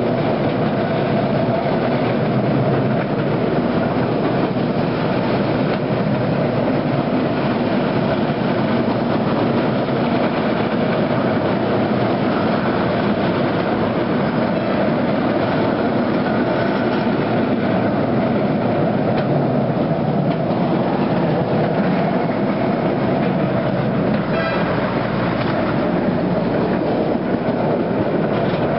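Miniature park railway train running steadily, heard from on board: a continuous rumble of the wheels on the track.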